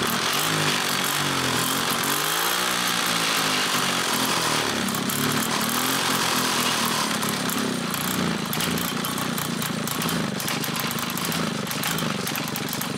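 Motobécane moped's small two-stroke engine just started from cold, revving up and down for the first few seconds and then running steadily at a fast idle.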